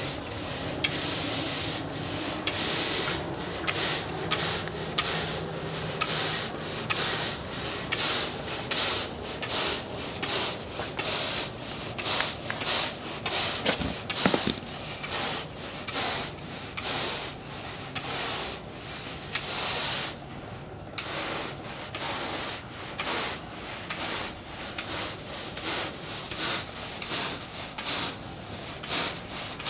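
Stiff-bristled push broom scrubbing back and forth across artificial turf in quick repeated strokes, working a granular odour-removal infill into the synthetic grass fibres, with a brief pause about two-thirds of the way through.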